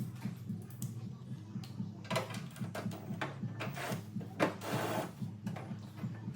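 Metal scraping and rattling clicks as a Phillips-head bolt is driven in to fix the tailgate lock bracket and spacer, with the louder bursts about two seconds in and again from about four and a half to five seconds in. A steady low hum runs underneath.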